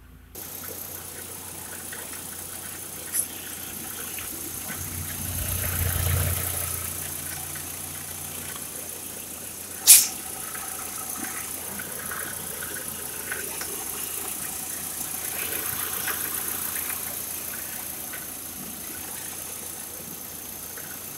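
VW Passat's 1.8-litre 20-valve turbocharged four-cylinder (AEB) engine idling steadily, heard with the bonnet open. It swells briefly a few seconds in, and there is one sharp click about ten seconds in.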